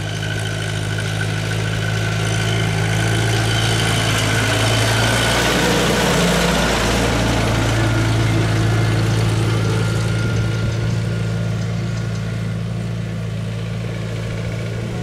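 International Harvester 2444 tractor engine running steadily as the tractor drives up and passes close by, growing louder toward the middle and fading as it moves away.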